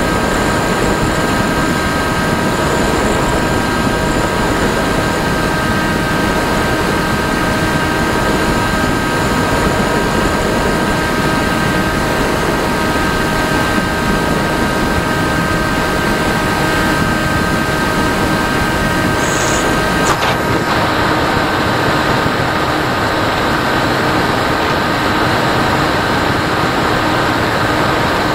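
Radio-controlled FPV plane's electric motor and propeller, heard from the onboard camera: a steady whine of several tones over rushing airflow noise. About twenty seconds in the tone shifts, with a brief falling sweep.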